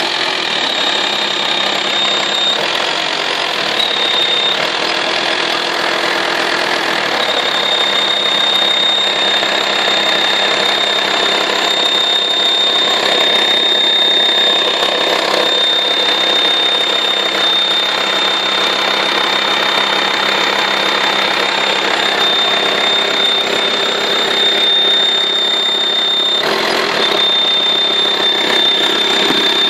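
VW T5 2.5 TDI (AXD) five-cylinder diesel idling hot, with a steady high-pitched whistle over the engine noise that drops out and comes back a few times. The whistle appears only at hot idle and its source is unknown; the owner suspects the turbocharger.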